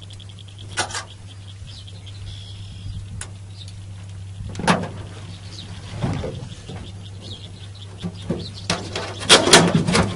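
Scattered clicks and knocks of a multi-tool working a hook out of a catfish and of the fish being handled in a small boat, with a louder clatter near the end as a plastic live-well lid is lifted. A steady low hum runs underneath.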